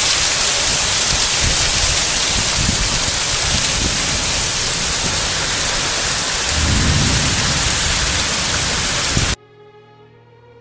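Torrential rain pouring down on trees and a garden, a loud steady hiss, with a brief low rumble about six and a half seconds in. Near the end the rain cuts off suddenly, giving way to quiet string music.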